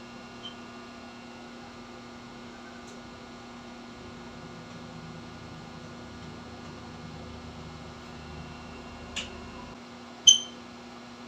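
Steady electrical mains hum, with two short sharp taps near the end, the second one louder.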